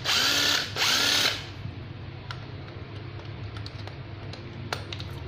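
12V cordless impact driver (CIDS-120AW) run unloaded in reverse in two short bursts, its motor whine rising as the trigger is squeezed, stopping about a second and a half in. Then faint clicks of a socket adapter and bit being handled against the tool.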